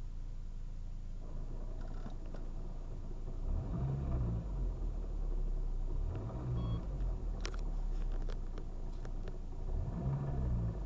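Lada Priora's four-cylinder engine idling and revved up and back down three times, with a few sharp clicks partway through. The car is being run to show a gearbox knock that the owner thinks most likely comes from worn input or output shaft bearings.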